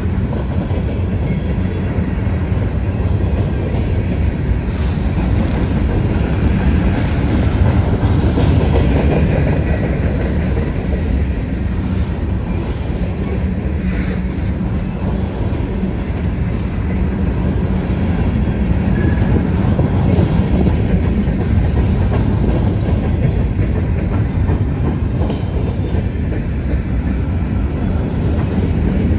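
Freight train cars rolling past at close range: a steady, loud rumble with the steel wheels clattering over the rails.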